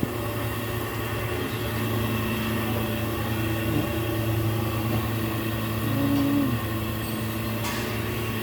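A steady low mechanical hum, running evenly throughout, with a brief extra tone joining in about six seconds in.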